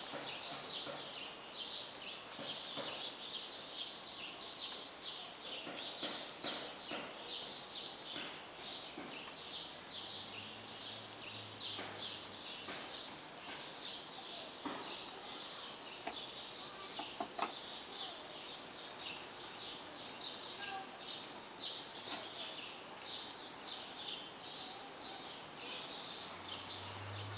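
Small birds chirping over outdoor ambience: short, high notes repeating about twice a second through the first half, with a steady stream of quicker chirps throughout and scattered brief clicks and rustles.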